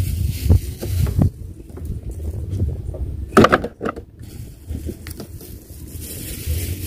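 Low, uneven rumble of wind on the microphone, with scattered clicks and rustles of plastic containers and bags being handled, and one brief louder sound about three and a half seconds in.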